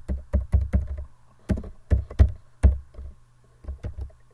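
Computer keyboard typing: an irregular run of sharp keystrokes, some in quick bursts, with a pause of about a second after the middle.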